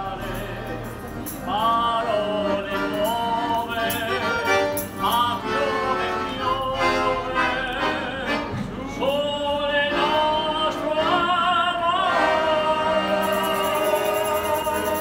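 A man singing a gondola serenade, his voice wavering in a strong vibrato on the held notes, over a steady instrumental accompaniment.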